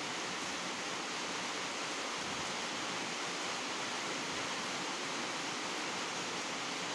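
A steady, even hiss, with no chewing or other distinct sounds standing out.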